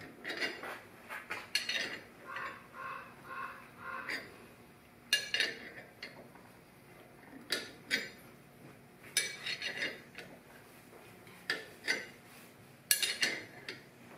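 Gear puller and hand wrench on an NSG370 transmission mainshaft: irregular metallic clicks and clinks, a few every couple of seconds, with a short run of four or five evenly spaced ticks about two to four seconds in, as the puller's screw is turned to draw first gear off the shaft.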